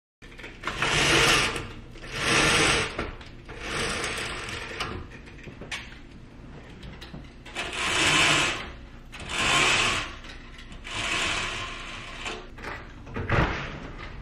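Roller shades being raised by hand: each pull on the bead-chain cord gives a whirring, ratcheting rattle from the shade's clutch. Six pulls, in two sets of three with a pause between, then a sharp click near the end.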